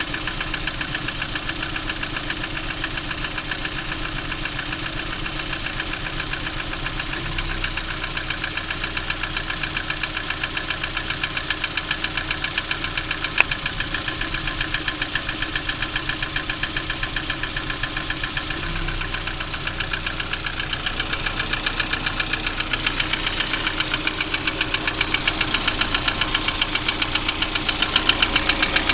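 Lada Priora engine idling with a fast, even, rhythmic knock, which grows louder in the last third.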